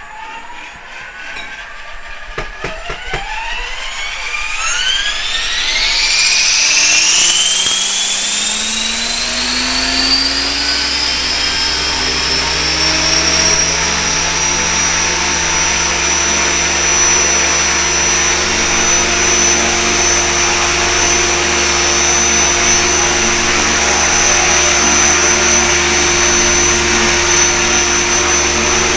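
Electric radio-control helicopter (HK500 CMT) spooling up: the motor whine and rotor hum rise in pitch over the first eight seconds or so, then hold at a steady high whine.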